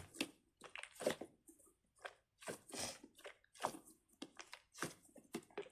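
A squishy fidget toy being squeezed and handled in the hands: a dozen or so short, irregular noisy squeezes. The toy is underfilled, with a little extra air space inside.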